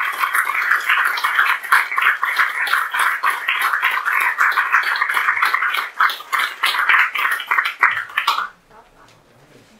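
Audience applauding, a dense run of many hand claps that cuts off suddenly about eight and a half seconds in.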